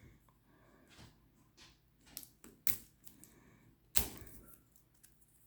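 Plastic shrink wrap being picked at and peeled off a tarot deck: scattered crackles and small clicks, with two sharper snaps, one a little under three seconds in and one about four seconds in.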